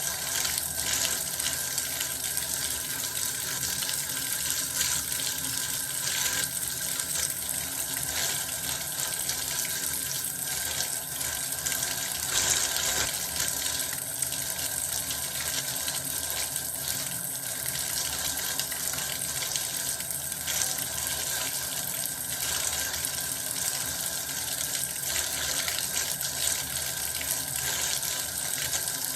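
Water running steadily from a tap and splashing into a bath, an even, unbroken rush of water.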